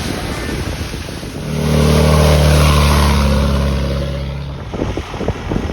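A 4x4's engine passing by: it swells up about a second and a half in, holds, then fades with a slight drop in pitch over about three seconds, over a steady rushing noise.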